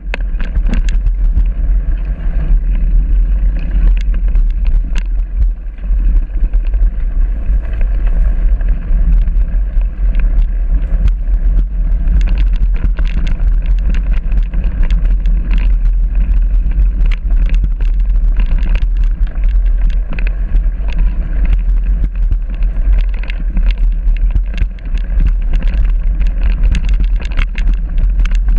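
Mountain bike riding over a rough dirt singletrack: a loud, steady low rumble of wind and rolling noise, with frequent clicks and rattles as the bike jolts over stones and roots.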